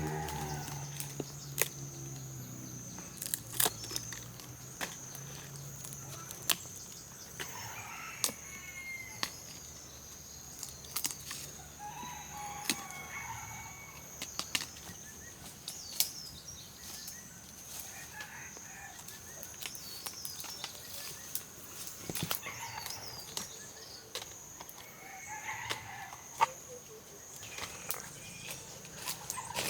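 Chickens clucking now and then, with many sharp clicks and knocks and a steady high-pitched hum behind them.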